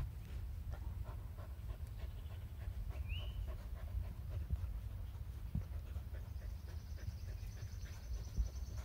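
A mother dog and her puppy panting as they play-wrestle, with a short rising squeak about three seconds in. From about six seconds a bird's high, rapid trill joins in.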